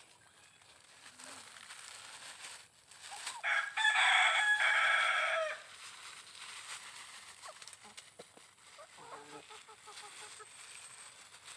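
A rooster crows once, a loud call of about two seconds a few seconds in, with chickens clucking softly.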